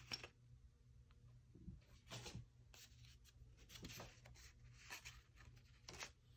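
Faint, brief rustles and light taps of paper and small cardboard boxes being handled, a few spaced about a second apart.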